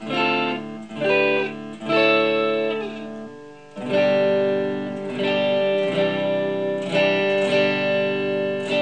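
Ibanez S470 electric guitar played through its DiMarzio Gravity Storm neck pickup. A few chords are picked in the first three seconds; then a new chord comes in about four seconds in and is restruck roughly once a second, ringing on between strokes.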